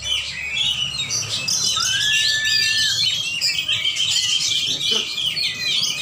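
Several caged songbirds singing at once, a dense unbroken chorus of fast chirps, trills and whistles. About two seconds in, one clear whistled note rises and holds for about a second.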